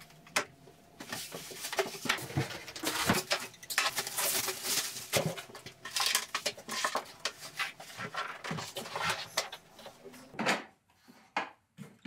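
Unpacking noise: plastic wrapping crinkling and polystyrene packing foam rubbing and squeaking, with many small clicks and knocks as an espresso machine is lifted out and unwrapped. There is a louder knock near the end.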